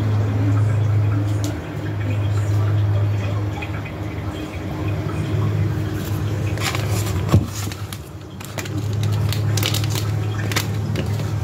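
Kitchen handling noises over a steady low hum. In the second half, a plastic powder packet is handled, giving a run of sharp clicks and crackles.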